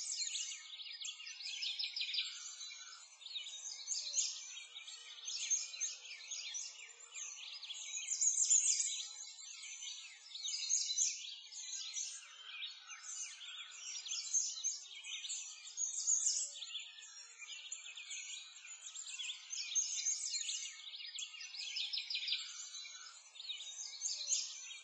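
A dense chorus of many small birds chirping and twittering, swelling and fading every couple of seconds.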